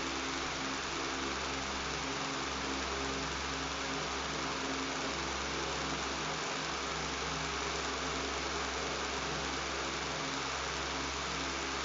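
Electric fan running steadily: a low motor hum and buzz under an even, airy hiss, with no change in speed.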